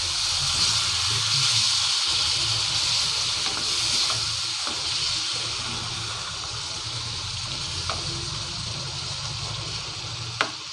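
Bitter gourds cooking in spiced oil in a hot pan, sizzling steadily after tamarind-jaggery water has been added; the hiss slowly dies down. A single sharp tap comes near the end.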